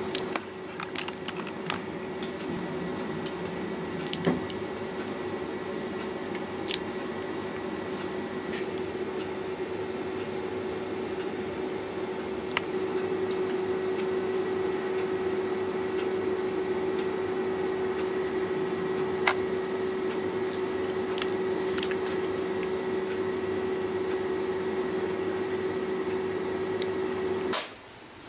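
Steady hum of a desktop computer, with a dozen or so short, sharp mouse clicks scattered through it. The hum stops about a second before the end.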